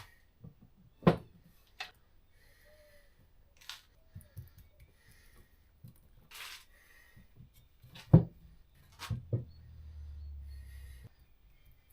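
Workshop handling of wooden workpieces: scattered sharp knocks and taps of wood on wood or on a bench, with short rubbing sounds in between and the loudest knock about eight seconds in. A brief low hum comes in near the end.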